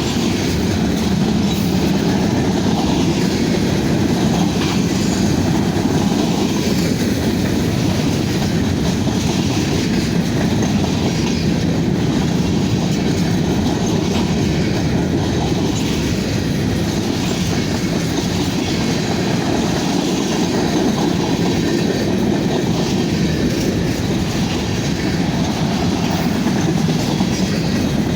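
Freight cars of a Union Pacific manifest train rolling past at speed: a steady rumble of steel wheels on rail.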